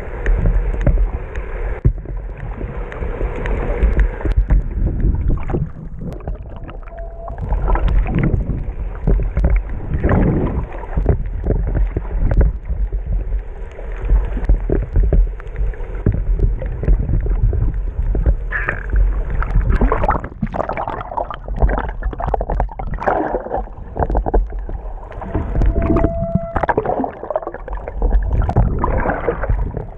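Muffled rushing and gurgling of seawater around a submerged camera, a constant low rumble with irregular surges and crackles as it moves through the water.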